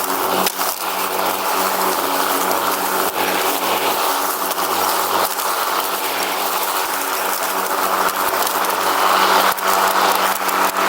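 Riding lawn mower engine running steadily, with a few short knocks and rattles from the machine as it moves.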